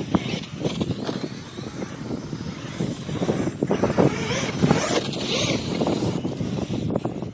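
Small electric RC truck driving through loose sand, its wheels churning and spraying sand as it passes close by about four seconds in. Wind buffets the microphone.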